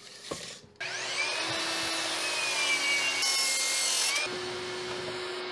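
Metabo HPT sliding compound miter saw cutting a 4x4 to length: the motor spins up with a rising whine about a second in, the blade cuts through the wood in a loud stretch around three to four seconds in, then the motor runs on more quietly.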